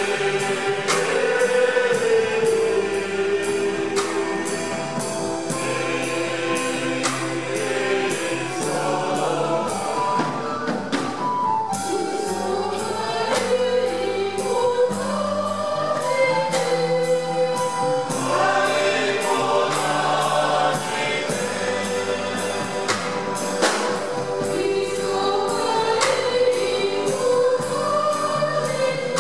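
A church choir singing a gospel hymn, voices over held low notes and a steady percussive beat.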